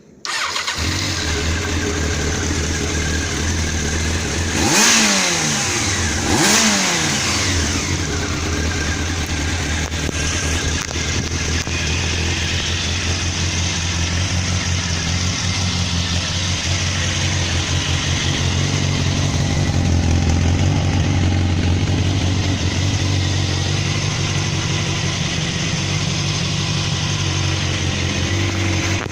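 Honda CBR1000F inline-four motorcycle engine, just rebuilt, starting up and idling steadily, blipped twice about five and six and a half seconds in with quick rises and falls in revs.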